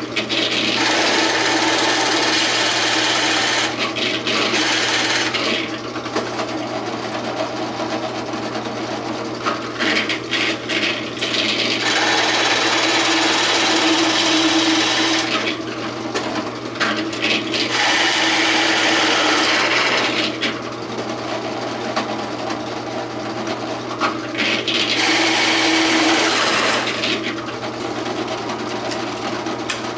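Drill press running with a Forstner bit boring into wooden drawer fronts: about five loud cuts of a few seconds each over a steady hum. The holes are bored halfway through from each side to keep the wood from tearing out.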